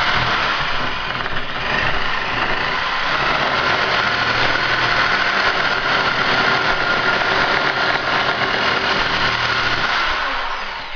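Handheld corded power cutting tool running as it cuts along a marked line in thin-wall 200 psi PVC sprinkler pipe: a steady motor whine with cutting noise, dipping briefly about a second in and stopping near the end.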